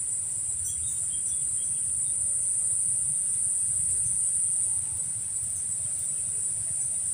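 Insects trilling steadily in one unbroken high-pitched note, with a low rumble underneath.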